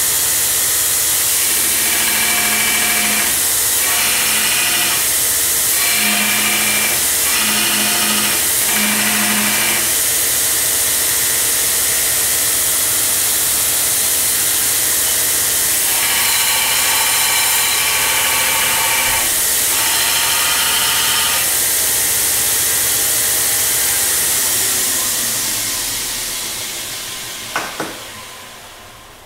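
Homemade 2x72 belt grinder, its 1.5 hp motor on a KBAC-27D variable-frequency drive, running the belt unloaded at full speed: a loud, steady rushing whir with high tones that come and go. It winds down over the last few seconds.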